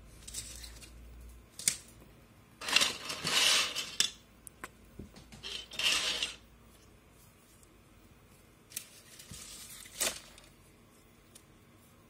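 Handling noise from plastic SMD component tape and a plastic bag, crinkling and rustling in two loud bursts of about a second each, with a weaker rustle later. Scattered sharp clicks and knocks come from the black tape-holder parts being handled.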